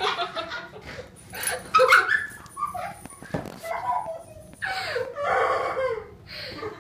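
Wordless vocal sounds from girls: stifled laughter and drawn-out cries in several short stretches, the longest about five seconds in.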